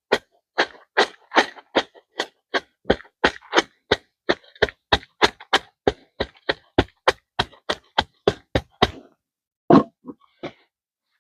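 Concrete being tamped down into a post hole by hand: a fast, even run of dull strikes, about three to four a second, that stops about nine seconds in, followed by one more strike and a couple of faint taps.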